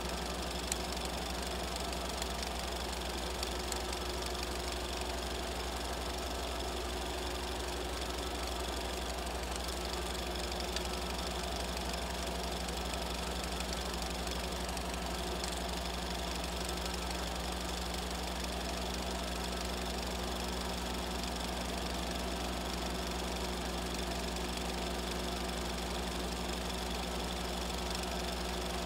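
Film projector running steadily: a constant motor hum with a fast, even mechanical clatter from the film-advance mechanism. This is an added projector sound effect.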